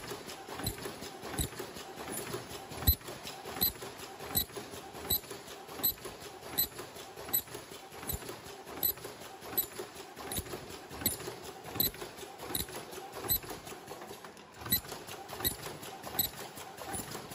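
Fully servo automatic high-speed face-mask welding machine running, a rhythmic clatter with a louder knock about every three-quarters of a second, quicker light clicks between, over a steady hum.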